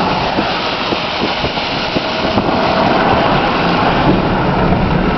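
Truck driving, a loud steady rushing noise of engine, road and wind with no distinct events.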